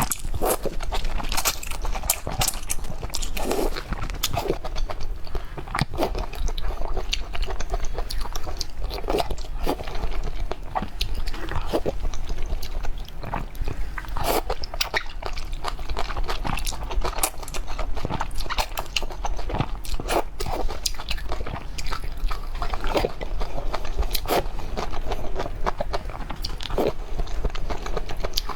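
A person chewing and biting food close to the microphone, with frequent short, sharp crunches throughout.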